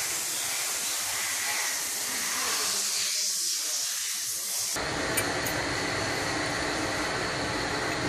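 A loud, steady high-pitched hiss that cuts off abruptly about five seconds in, giving way to a quieter, fuller rushing noise.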